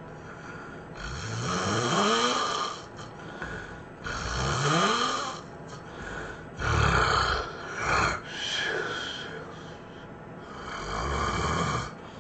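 A person snoring loudly: five heavy snores about every two to three seconds, the first two rising in pitch and the middle two shorter.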